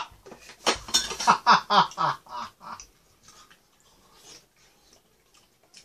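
A woman laughing in a quick run of "ha-ha-ha" bursts that lasts about two seconds and falls in pitch, then faint clicks of a spoon and chopsticks and chewing as she eats.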